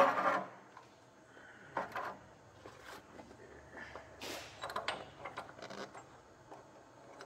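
A few faint, scattered knocks and scrapes of a steel square being handled and set against the steel arm, after a brief louder noise at the very start.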